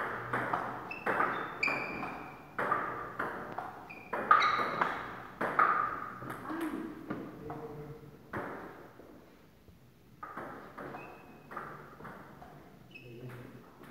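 Table tennis rally: the ball clicking off the paddles and the table at about two hits a second, each hit with a short, high ping. The hits come thinner and fainter in the second half.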